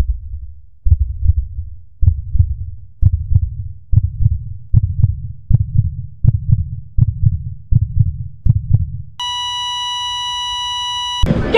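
Heartbeat sound effect: low double thumps that come faster and faster. After about nine seconds they give way to a steady electronic beep held for about two seconds.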